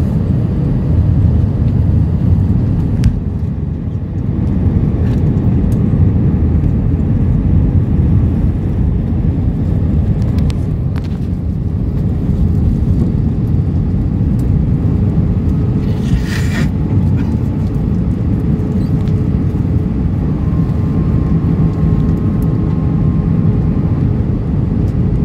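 Steady cabin noise inside an Airbus A320-232 on final approach: a low rumble of its IAE V2500 engines and airflow over the fuselage, with a faint steady hum. A short hiss sounds about two-thirds of the way through.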